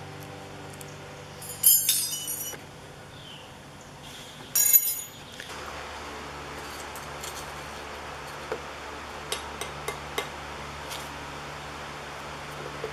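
Steel files dropped onto a concrete floor, clattering and ringing with a bright metallic clink in two bursts, about two seconds and about five seconds in. After that, only a steady faint hum with a few light ticks.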